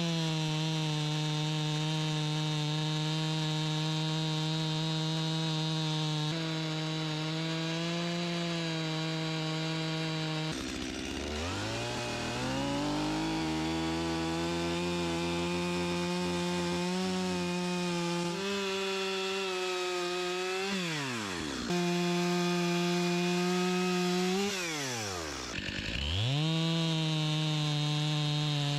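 Two-stroke chainsaws running at full throttle, ripping a white pine log lengthwise. The sound comes from a Stihl saw on a Granberg Alaskan chainsaw mill, and in the middle stretch from a smaller handheld saw trimming the side of the log. The engine note holds steady under load, dips sharply and climbs back up a few times.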